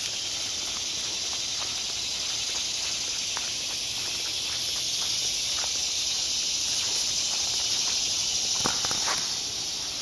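Dense chorus of cicadas, a steady high-pitched buzzing hiss that swells a little in the second half. A couple of footsteps on the leaf-strewn dirt trail near the end.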